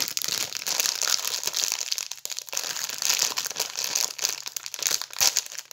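Plastic surprise-packet wrapper crinkling continuously as it is squeezed and worked open by hand, with a sharper crackle about five seconds in.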